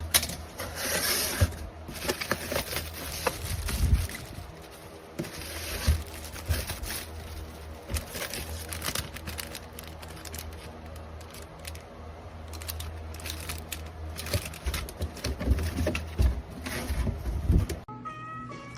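Close handling noise, likely a headset box being unpacked: irregular crinkling, rustling and tearing of packaging with sharp clicks, over a steady low hum.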